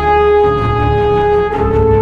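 Background music: a held brass-like melody, one long note changing to a higher one about one and a half seconds in, over a low bass.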